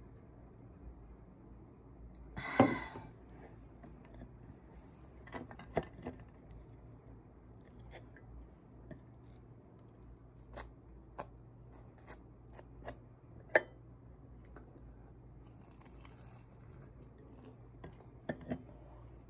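Table-top food handling: a crisp toasted bagel split open with one loud crunch about two and a half seconds in, then scattered light clicks and scrapes as a small knife spreads filling onto the bagel and touches the enamel plate, over a faint steady low room hum.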